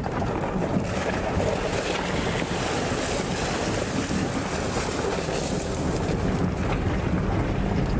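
Wind buffeting the microphone: a steady, rough rushing noise with no pauses.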